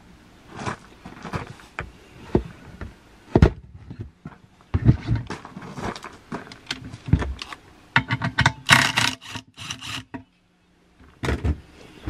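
Clamp-on tyre bead breaker being worked on an alloy wheel rim: irregular metal clicks, clanks and scrapes, with a quick run of rapid clicks about two-thirds of the way in, as the tyre bead is pushed off the rim.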